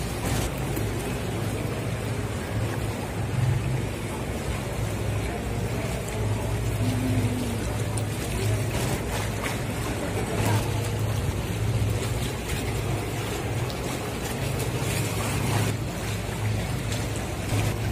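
Wind buffeting the microphone: a steady low rumble that swells and dips.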